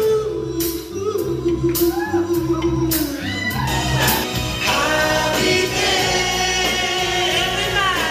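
Live pop-soul vocal group singing with a backing band. A single voice holds long, bending notes, then about halfway through more voices come in in harmony over a steady bass and beat.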